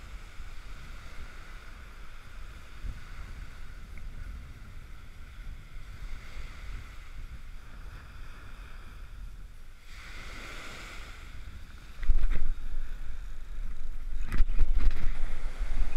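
Small ocean surf breaking and washing up the sand, a steady hiss. From about twelve seconds in, strong gusty wind buffets the microphone and drowns it out.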